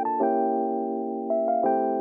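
Background music on electric piano: held chords with a slow melody of struck notes, and a quick run of three rising notes near the end.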